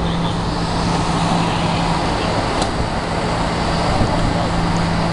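Vehicle engines running steadily over road traffic noise, with a constant low hum underneath.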